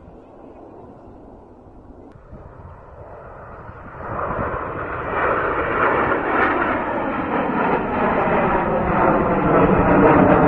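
Jet noise from the Frecce Tricolori's formation of Aermacchi MB-339 jets passing overhead. It is faint at first, then from about four seconds in it rises to a loud, building roar.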